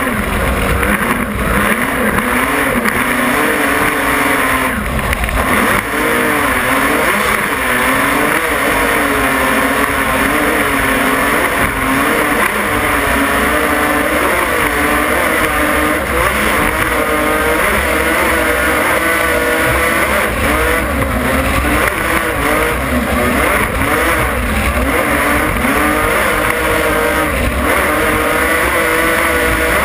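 Offshore racing powerboat's engines running at racing speed, a loud, continuous note whose pitch wavers up and down, over a rush of wind and spray.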